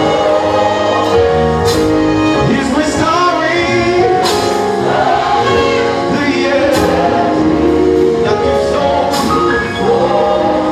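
Gospel song: a man singing lead through a microphone over instrumental backing, with held notes and gliding vocal lines.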